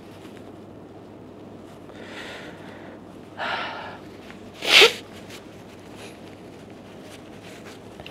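A man blowing his nose into a tissue and sniffling while crying: three short breathy blows, the loudest just past halfway.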